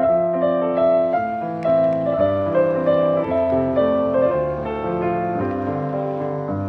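Background music: a piano or keyboard melody with chords.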